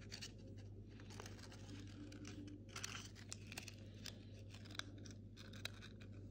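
Faint crinkling and small sticky crackles as softened, wet rice paper is pressed and folded by hand around a folded parchment-paper cookie, over a low steady hum.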